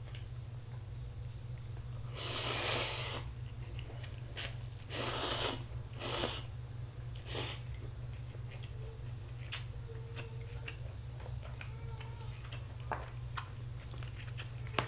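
A person slurping instant ramen noodles: two long slurps, about two and about five seconds in, and a shorter one just after. Then chewing, with small wet mouth clicks, over a steady low hum.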